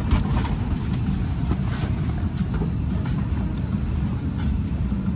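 Steady low rumble of an Airbus A320 cabin, with faint rustles and small clicks as a hand handles the fabric seatback pocket.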